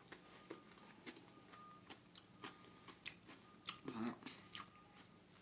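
Close-miked mouth chewing: soft wet clicks and smacks, a few louder ones past the middle, with a short low vocal sound about four seconds in.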